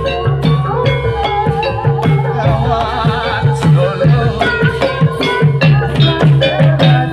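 Javanese kendang drum played in a steady rhythm of low strokes, about three a second, for a sound check. A wavering melody plays over it, and the drum is the loudest part.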